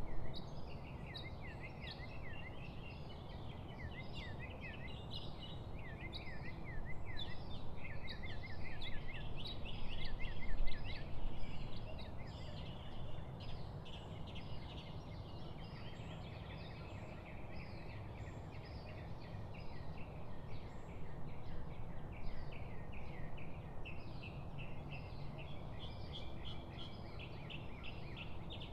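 Several songbirds chirping and trilling continuously, quick repeated notes overlapping each other, over a steady low background rumble.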